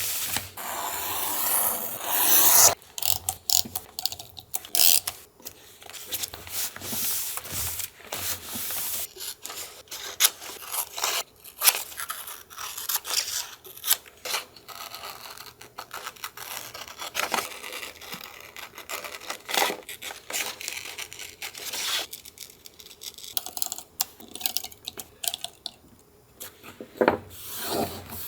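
Paper handled in collage work: a steady rubbing scrape for the first couple of seconds, then many short crinkles, scrapes and small taps of paper and stickers.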